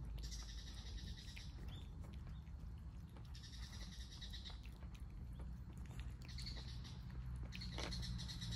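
Several cats chewing and smacking on wet food from bowls. Repeated high chirping calls come in bursts about a second long: near the start, about halfway, and twice near the end.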